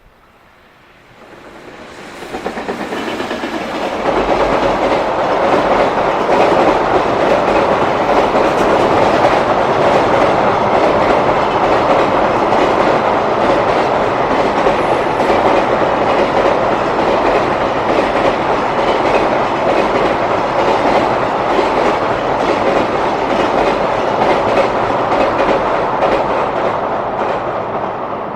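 A freight train running past at speed, its wagon wheels clattering over the rail joints. The sound builds over the first few seconds, then holds loud and steady, easing off a little near the end.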